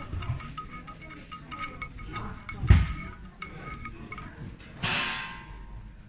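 Hard-plastic clicking and knocking as the threaded side-port plug is unscrewed from a white plastic CCTV camera junction box: a run of small clicks, one heavier knock about two and a half seconds in, and a short scrape near the end as the plug comes free.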